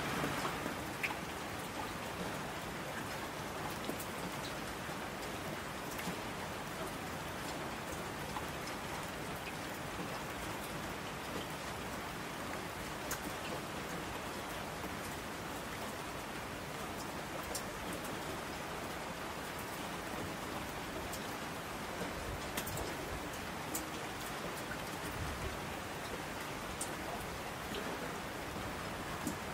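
Steady rain ambience, an even hiss of rainfall with scattered small drop ticks.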